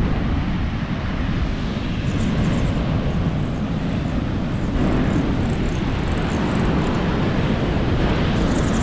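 Steady wind rumbling on the microphone over breaking surf.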